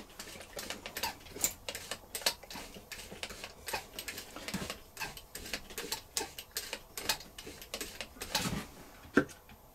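Irregular light clicks and ticks as a plastic oil bottle is squeezed and its nozzle worked against the metal shafts and linkages under a 1956 Singer 201K sewing machine, oiling the dry mechanism. There is one duller knock near the end.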